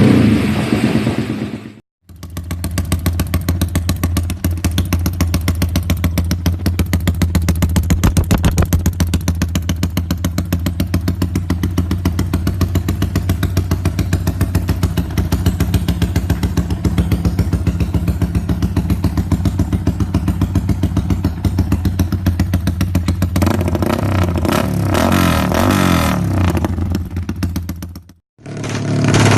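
Modified Yamaha 150 cc single-cylinder four-stroke underbone motorcycle engine with an aftermarket exhaust, running steadily at a low, even speed with a fast, regular exhaust pulse. The tone turns brighter near the end.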